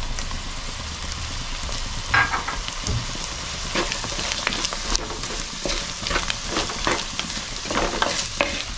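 Shallots and spice paste sizzling steadily in a clay pot, with freshly added diced raw mango, while a wooden spatula stirs and scrapes through them in repeated strokes from about two seconds in.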